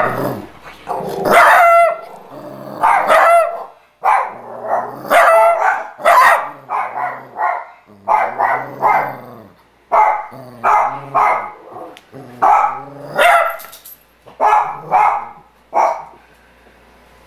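A small dog barking repeatedly, about twenty short barks at one or two a second, stopping near the end.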